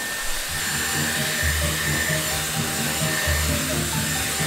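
Hot-air styling brush blowing steadily: a loud airy hiss with a faint high motor whine. Background music with a stepping bass line comes in about half a second in.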